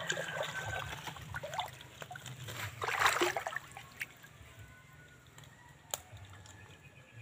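Shallow creek water splashing and sloshing around legs wading through it, with a louder splash about three seconds in and a couple of sharp clicks later.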